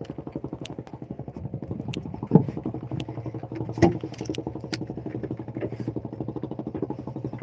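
Fishing boat's engine running steadily with a fast, even pulsing beat, a few sharp clicks and knocks over it.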